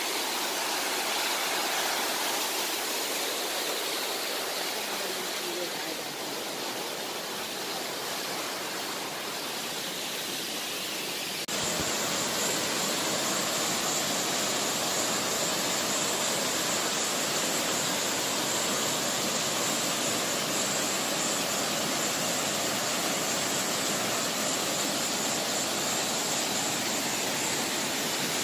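Steady rush and hiss of a waterfall cascading down rock ledges. It jumps suddenly louder and brighter about eleven seconds in.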